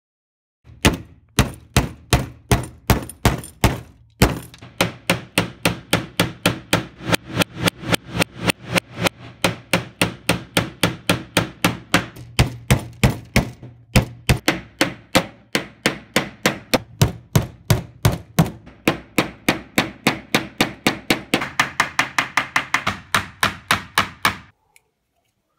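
A hammer striking wooden planks again and again, about three or four blows a second, driving nails into the boards. The blows pause briefly twice and stop about a second before the end.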